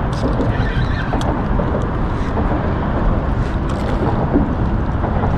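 Wind rumbling on the microphone over water noise on a boat, with a few light knocks.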